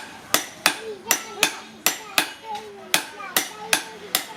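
Hammer striking metal in a steady rhythm, about three blows a second, each leaving a short metallic ring.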